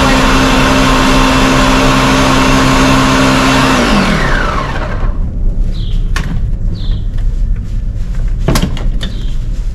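Electric blender running steadily, blending chopped fruit with water and sugar, then switched off about four seconds in, its motor whining down as it slows. A few sharp clicks and knocks follow.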